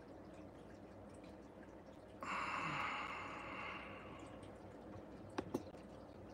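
A person's breathy exhale that starts suddenly, about two seconds in, and fades over a second and a half, followed near the end by two quick clicks in close succession.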